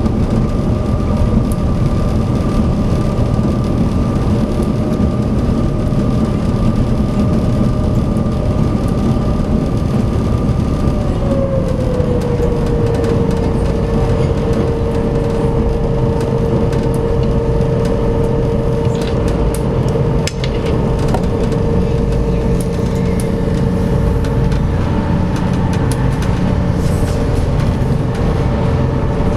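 SeaBus passenger ferry's engines running with a steady heavy rumble and hum. About a third of the way in, one whining tone drops a little in pitch and settles lower.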